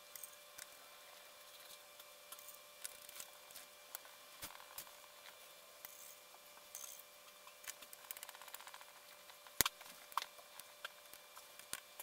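Faint scattered clicks and taps of small screws and a screwdriver being handled on a hexacopter frame, with a quick run of fine ticks about eight seconds in and a sharper click about nine and a half seconds in.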